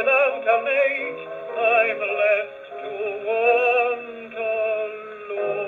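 An 8-inch 1932 Eclipse record playing on a Decca Telesmatic portable wind-up gramophone, heard through its horn: thin, narrow-toned dance-band music with a wavering vibrato melody.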